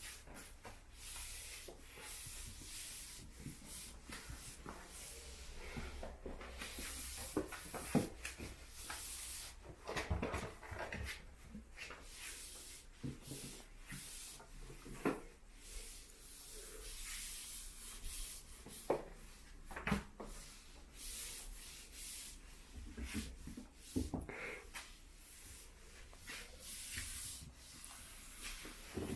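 Flat floor wiper's dry sheet swishing back and forth across a hard floor in irregular strokes, with scattered light knocks and taps.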